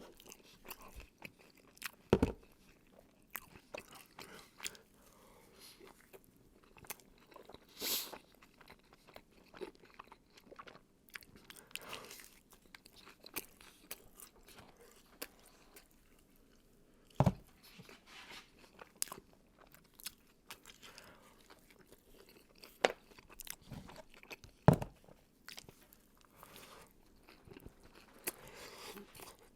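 Close-miked chewing of crunchy, cheesy Taco Bell food: wet mouth smacks and small crunches throughout, with a few louder crunching bites about two seconds in, about halfway through and near the end.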